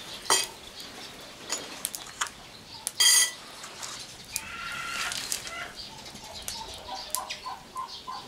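Chickens clucking and calling, with scattered light knocks and a brief sharp, louder sound about three seconds in. Near the end comes a quick run of short clucks, about six in a second.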